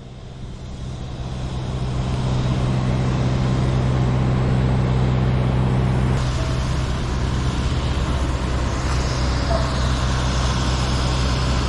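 Heavy construction machinery engine running steadily at a constant speed, a deep hum that rises in level over the first couple of seconds and then holds, with a slight shift in tone about six seconds in.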